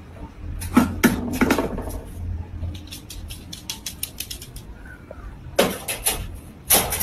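Wire dog crate rattling and clicking as a small dog pushes in through its door and settles inside; sharp metallic clicks come in clusters, the loudest near the end.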